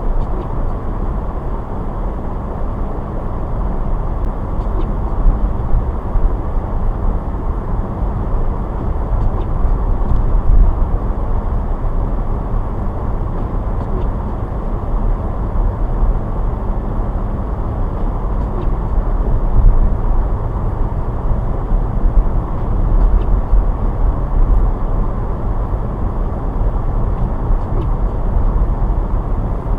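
A car driving on snowy roads: a steady low rumble of engine and tyre noise, with a faint tick about every four to five seconds.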